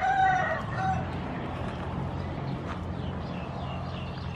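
A rooster crowing, its call ending about a second in. Afterwards a steady low hum and a few faint bird chirps.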